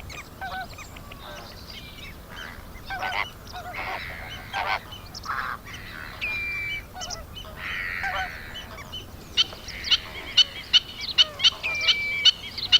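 A greater flamingo colony calling: many overlapping goose-like honks, with a quick run of short sharp calls near the end.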